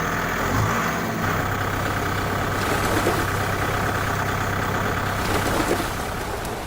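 A small motor running steadily with a constant hum, typical of a miniature DIY road roller at work; the sound cuts off abruptly at the very end.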